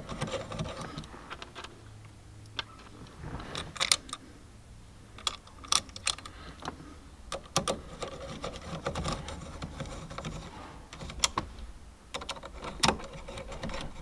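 Hand screwdriver with an Allen bit tightening the bolts of an NRG steering wheel onto its quick-release hub: irregular small metal clicks and light scraping, with a few sharper ticks.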